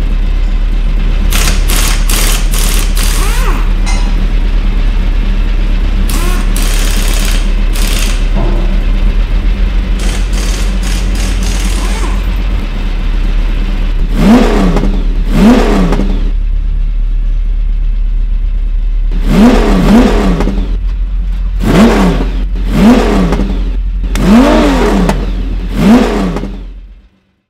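Car engine sound effect: a steady low idle with several short sharp noises in the first half. Later come eight quick throttle blips, each rev rising and falling in pitch. The sound cuts off abruptly near the end.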